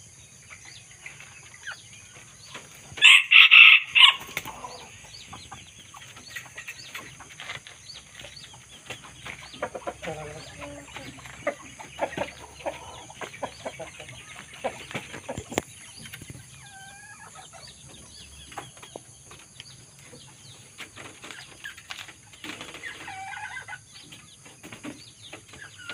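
Junglefowl rooster crowing loudly once about three seconds in, followed by scattered clucking calls from the flock over light rustling and clicking.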